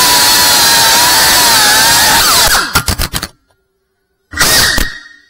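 Cinewhoop drone's small brushless motors and propellers running at a steady high whine. About two and a half seconds in the pitch drops and a quick clatter of hits follows as the drone strikes something, and the motors cut out. Near the end the motors spin up again in one short burst.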